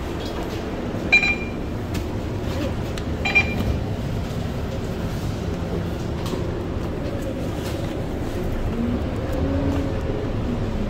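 Scania K230UB bus's five-cylinder diesel engine running, heard from inside the passenger cabin as a steady low rumble. Two short, high beeps sound about a second in and again about three seconds in.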